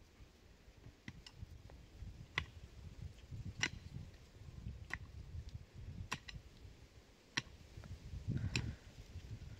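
Sharp knocks at an even pace, about one every second and a quarter, over a low, uneven rumble of handling.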